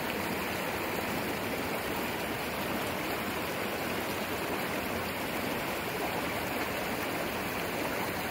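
A stream rushing steadily: an even, unbroken hiss of flowing water.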